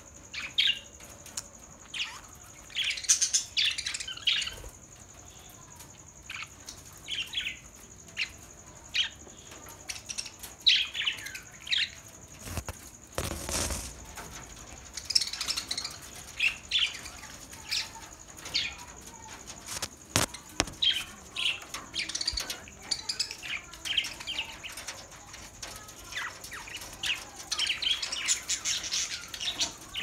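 A flock of budgerigars chirping and chattering: short, high chirps coming in quick clusters throughout. About halfway through comes a brief loud rush of wing-flapping.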